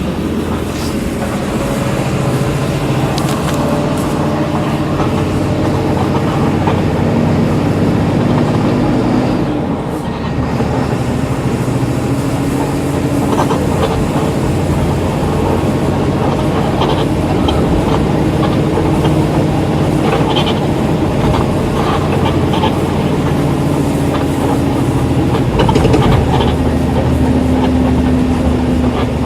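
Volkswagen Volksbus 17.230 EOD bus's diesel engine pulling under load, its pitch climbing steadily and dropping briefly at gear changes, once about a third of the way in and again near the end.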